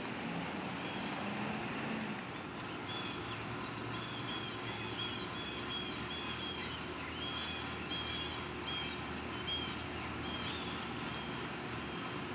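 Steady rumble of vehicle engines and road noise, with a bird repeating a short chirping call about twice a second from about three seconds in until near the end.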